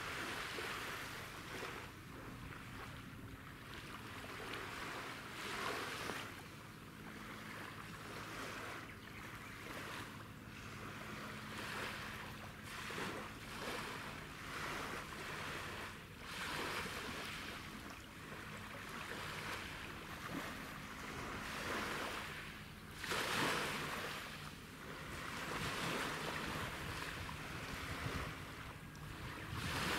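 Small waves lapping, swelling and fading every couple of seconds, over a low steady engine hum from the ferry and tug lying offshore.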